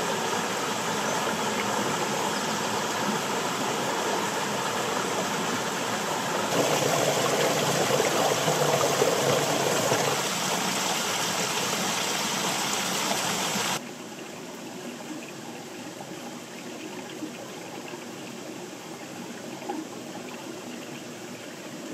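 A small waterfall pouring into a rock pool: a steady rush of water, loudest from about six to ten seconds in. It cuts abruptly to a quieter, even flow of stream water about fourteen seconds in.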